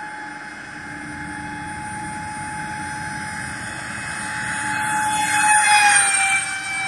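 Twin electric ducted fans of an RC model Airbus A330-600 jet whining steadily at takeoff power through the takeoff roll and climb-out. The whine grows louder as the plane nears, peaks as it passes low overhead, then dips slightly in pitch as it goes by near the end.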